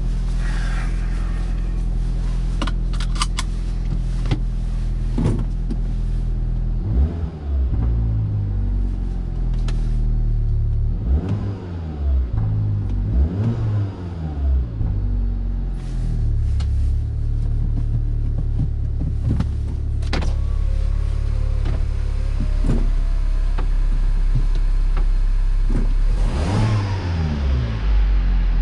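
MINI Cooper's four-cylinder engine running just after being started on a newly fitted starter motor, heard from inside the cabin. It idles steadily, with a few light clicks about two to three seconds in. It is then revved up and down several times, holds a steady higher speed, and is revved again near the end.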